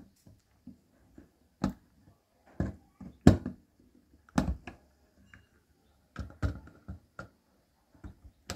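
Pliers clicking and gripping on the small geared motor's metal casing as its tabs are bent inward to hold the top cover. Irregular sharp clicks and taps, about one a second, with no motor running.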